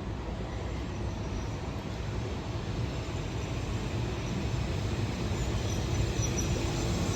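Steady rumbling noise of a vehicle in motion, slowly growing a little louder.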